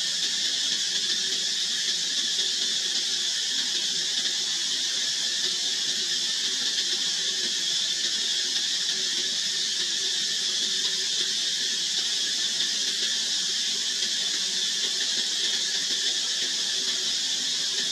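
A steady, high-pitched hiss that holds at an even level with no breaks.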